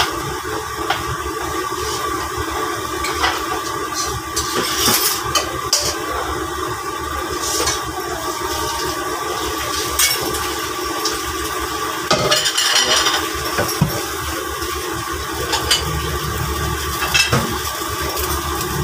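Busy kitchen noise: a steady rushing, with a metal ladle scraping and clinking against a wok and dishes now and then.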